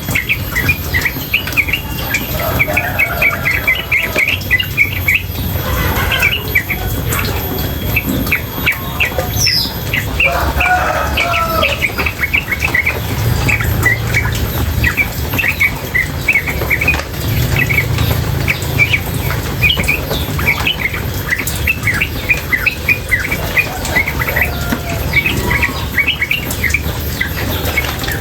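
Female yellow-vented bulbul (trucukan) calling in fast, unbroken runs of short, high chirps, several a second. A steady low water sound runs underneath.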